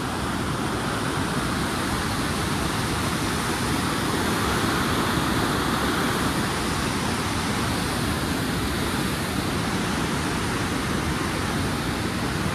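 Fast-flowing mountain river rushing steadily, one even wash of water noise.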